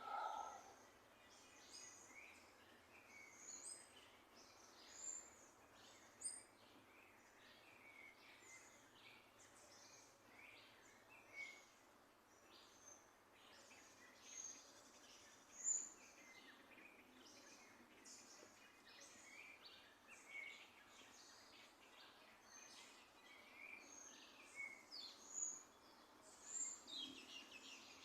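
Faint chorus of small birds chirping and singing, many short high calls overlapping, with a lower call right at the start.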